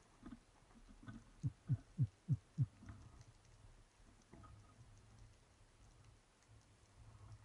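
Underwater sound picked up by a diving camera: faint scattered clicking, and about a second and a half in, a quick run of five low thumps, each dropping in pitch, roughly three a second.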